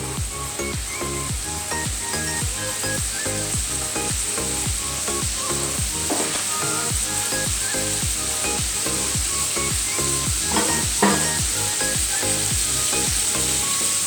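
King prawns sizzling as they fry in hot olive oil in a pan, a steady high hiss, under background music with a regular beat. A brief knock about eleven seconds in.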